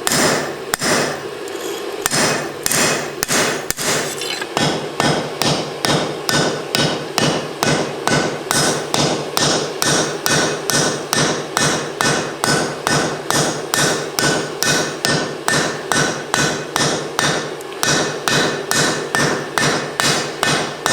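Hand hammer striking steel on an anvil in a steady rhythm, about two to three blows a second, with the anvil ringing between blows: peening over the rivet that joins the two halves of a pair of forged bolt tongs.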